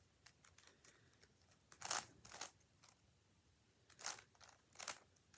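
Rubik's Cube being twisted by hand: four quick plastic scraping turns of its layers, in two pairs about two seconds apart.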